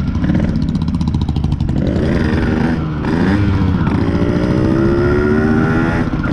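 Yamaha RX100's 98 cc two-stroke single-cylinder engine pulling hard under acceleration. The revs climb, dip briefly about three seconds in, then rise steadily again.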